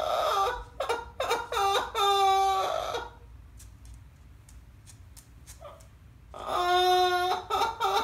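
Yellow-naped Amazon parrot mimicking a crying baby: a run of short sobbing wails in the first three seconds, a pause, then one long wail followed by short sobs near the end.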